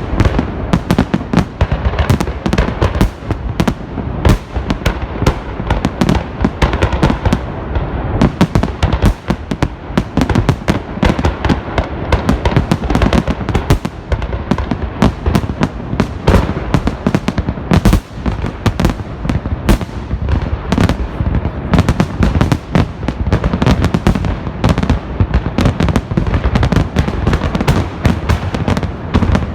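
Festive fireworks salute: a dense, continuous barrage of overlapping bangs from launching and bursting shells, many per second.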